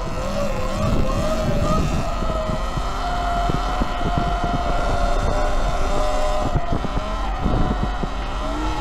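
Electric motor of a 72-volt Eride Pro SS electric dirt bike whining under way, its pitch rising and falling with the throttle. Wind rushes over the microphone, and the bike rattles and knocks over the rough trail.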